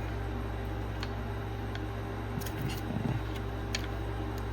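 A few faint, scattered light clicks over a steady low hum.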